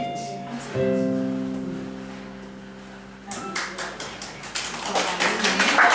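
A final chord on an electronic keyboard is struck and fades away. Then an audience starts clapping about three seconds in, the applause growing louder.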